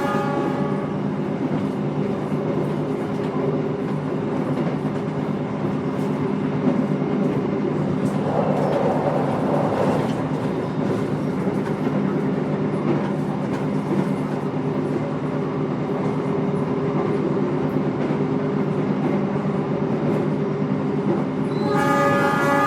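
Interior ambience of an executive-class passenger train carriage on the move: a steady rumble and hum with low droning tones. A held tone with several pitches sounds briefly at the start and comes in again near the end.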